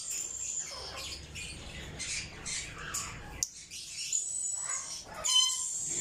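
African grey parrots making short high squeaks and chirps, with one louder pitched call near the end.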